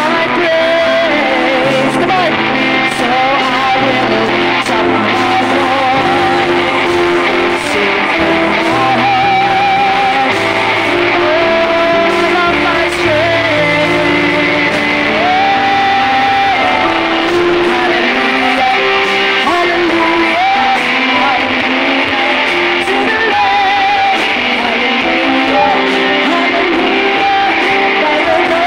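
Worship band playing a song live: a woman singing lead over electric guitars, bass, keyboard and drums.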